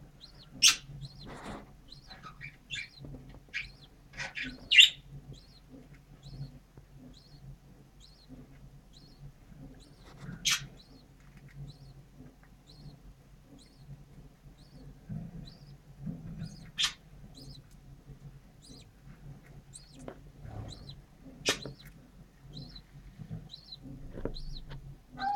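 English budgerigars at a nest box chirping: a steady series of short, faint peeps about once a second, broken by a few loud, sharp chirps.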